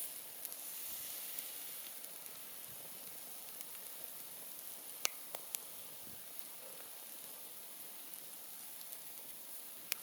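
Wood campfire burning with a steady hiss, broken by sharp crackles: three quick pops about five seconds in and one more near the end.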